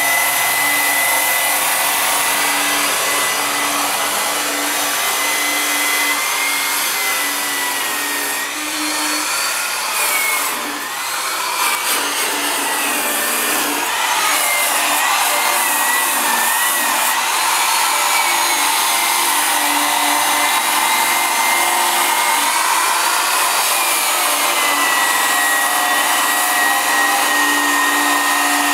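A steady machine whir with a high hiss and a thin whine that drifts slightly in pitch, dipping briefly about ten seconds in.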